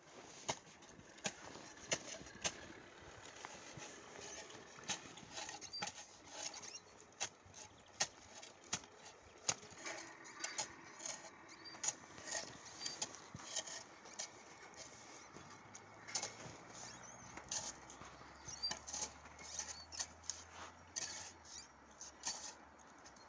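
The toy backhoe digger on a John Deere pedal tractor is being worked in snow: irregular sharp clicks, clacks and scrapes as its arm and bucket move, about one or two a second.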